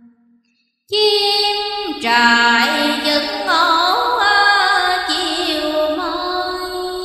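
After a near-silent gap of about a second, a slow melody starts: long held notes with sliding, wavering pitch bends, the music of a chanted Hoa Hao Buddhist poem.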